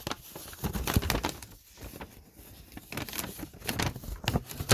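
Plastic packets of door hardware being handled and turned over, crinkling with scattered small clicks and rattles.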